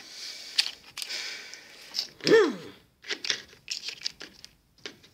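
Plastic sauce packets crinkling and rustling as they are handled, then a short falling pitched sound a little past two seconds in, followed by a run of light clicks and taps.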